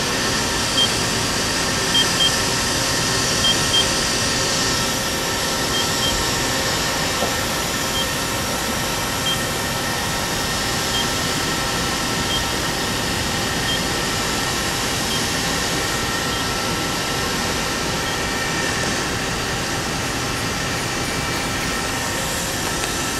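Steady whir and hum of a Mori Seiki NH4000 DCG horizontal machining center running as its fourth-axis rotary table turns the pallet. Short high beeps sound at irregular intervals, several in the first few seconds, then more spaced out until they stop about three quarters of the way through.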